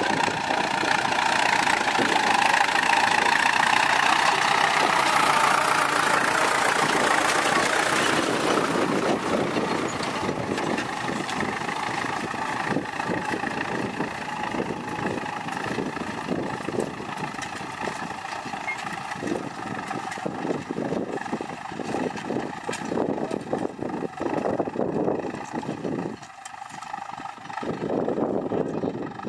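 Ford 6610 tractor's four-cylinder diesel engine running, louder for the first eight seconds or so and then easing off, with an uneven clatter throughout and a brief dip near the end.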